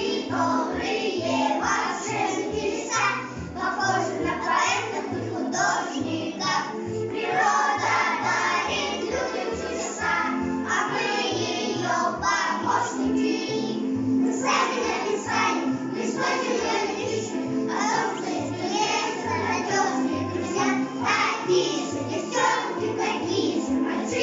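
A song sung by children's voices over backing music with a steady bass beat.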